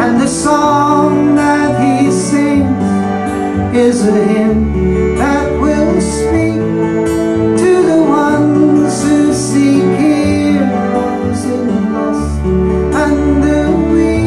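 Instrumental break in an acoustic folk song: guitar with bass notes changing every second or two, under a lead melody line that bends and slides between notes.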